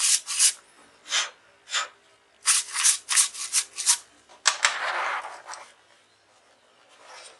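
Paintbrush bristles scrubbing dust out of a laptop's heatsink fins and fan-vent grill in quick strokes: a few single strokes, then a fast run of about six, then a longer scraping rustle. This is the dust blockage that made the laptop overheat being cleared.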